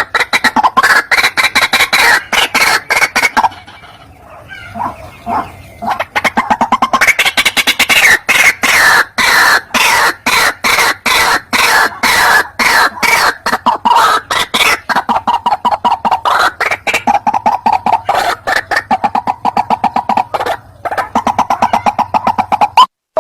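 White-breasted waterhen calling: a fast run of harsh repeated notes, several a second, that breaks into softer, scattered calls from about three and a half to six seconds in, then picks up the fast run again.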